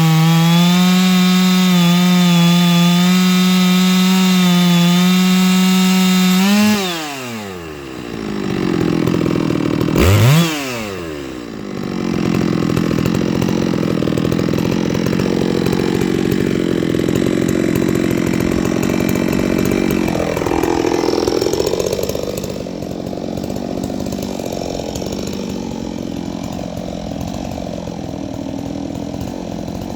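Two-stroke chainsaw milling through a large black oak log: the engine runs steadily at high revs, then drops sharply about seven seconds in. It is briefly revved up and down near ten seconds, then keeps running at lower, rougher revs.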